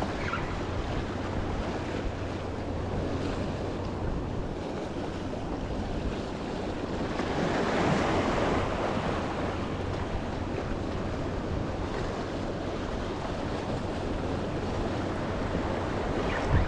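Ocean waves breaking and washing against the rocks of a stone jetty, a steady surf with one louder wave crashing about eight seconds in.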